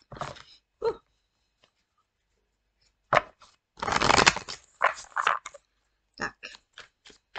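A deck of tarot cards being shuffled by hand: short rustling bursts of cards sliding and slapping together, the longest a little past halfway, then a run of quick card taps near the end.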